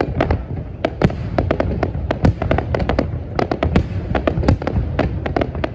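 Aerial fireworks display: a rapid, irregular run of sharp bangs, several a second, over a continuous low rumble of further bursts.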